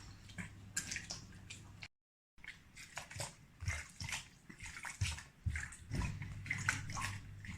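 Hands squeezing and kneading seitan dough in a bowl of water to wash out the starch: irregular sloshing and squelching, broken by a brief dropout to silence about two seconds in.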